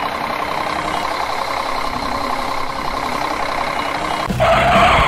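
Truck engine idling steadily with an even, rapid pulse, likely a sound effect laid over the toy excavator footage. Near the end a louder hissing noise joins it.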